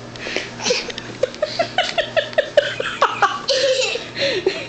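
A young child laughing: a quick run of short high giggles, about five or six a second, breaking into higher squeals.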